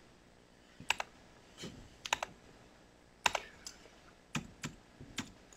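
Irregular keystrokes on a laptop keyboard: a dozen or so short taps and clicks, some in quick pairs, with pauses between them.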